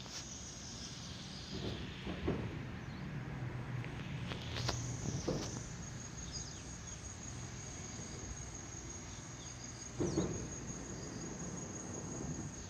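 Insects trilling steadily with one thin high pitch, with faint chirps below it. Over it come a few soft thumps and rustles of the handheld phone, the loudest about ten seconds in.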